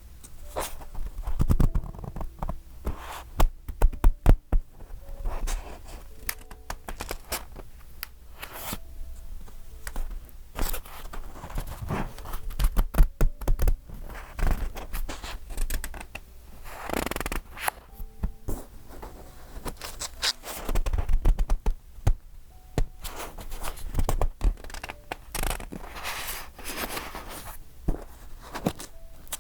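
Paper pages of a decorated A5 journal being turned and handled: rustling swishes of turning pages with soft thunks, taps and scrapes in between.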